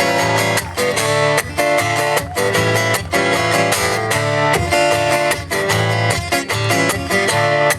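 Guitar strumming chords in a steady rhythm, with no singing.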